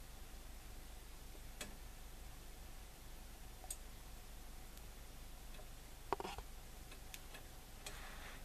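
Quiet room tone with a steady faint hiss and a few scattered soft clicks and ticks, the plainest a pair of clicks a little after the middle.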